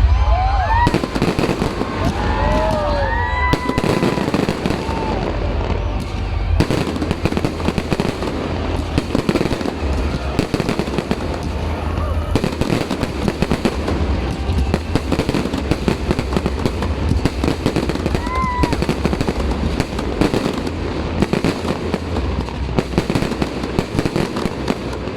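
A fireworks display going off continuously, with dense rapid bangs and crackles over heavy low booms.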